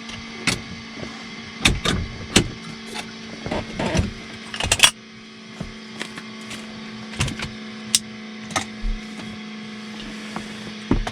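A steady electrical hum with about a dozen short clicks and knocks scattered through it, the loudest a little under five seconds in.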